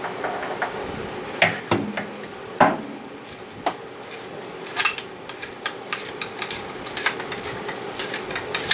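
Cleaning rod pushed through the bore of a Kel-Tec Sub2000 carbine with a patch, clicking and scraping against the metal in irregular sharp clicks and knocks, the loudest about a second and a half and two and a half seconds in.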